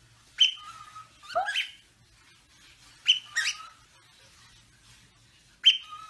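Cockatiel giving short whistled chirps in four bursts a second or two apart, the notes sliding sharply in pitch, some rising, with a brief held whistle after some of them.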